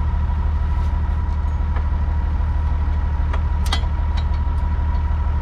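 6290 tractor's engine running steadily while pulling a John Deere round baler through rows of straw, a low hum with a thin steady whine over it and a few faint clicks about three and a half seconds in.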